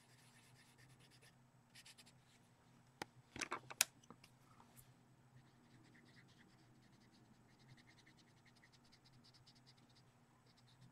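Faint scratching of a pastel pencil on a colouring-book page, in quick short strokes, with a few louder scratches about three to four seconds in.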